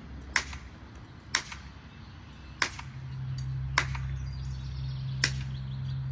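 Five sharp, gunshot-like cracks about a second apart, fired to get a young puppy used to loud noises. A steady low hum starts about halfway through.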